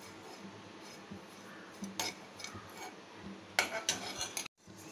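A metal spoon stirring and scraping dried neem flowers around a dry kadai, with occasional clinks of spoon on pan that are louder about two seconds in and near the end. The flowers are being dry-roasted without oil on low heat, so there is no sizzle.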